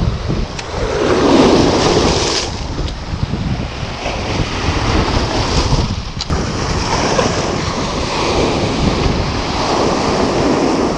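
Surf breaking and washing over a rocky coral shoreline, with wind buffeting the microphone. A wave crashes loudest about a second in, and another surges near the end.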